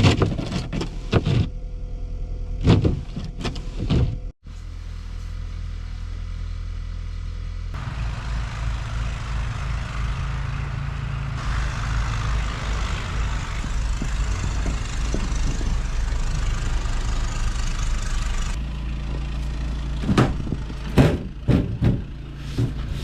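Steady low drone of a vehicle running, with a few sharp knocks and clatters near the start and again near the end.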